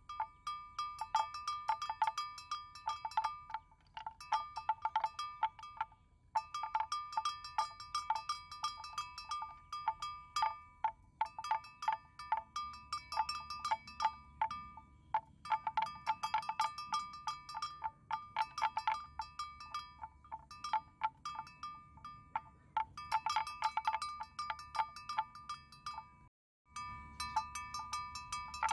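Metal bell hung on a water buffalo's neck clanking in quick irregular runs as the animal moves, with short pauses between runs.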